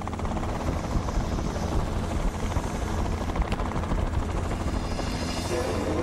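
Helicopter rotor sound effect for a small cartoon helicopter taking off: a steady, fast chopping whir.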